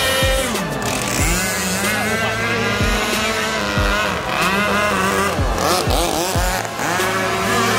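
Several radio-controlled powerboat engines racing together, their whine rising and falling in pitch as the boats accelerate, turn and pass by.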